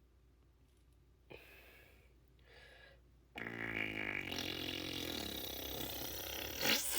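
A long, rasping fart noise starting about halfway through and lasting about three and a half seconds, its pitch slowly falling.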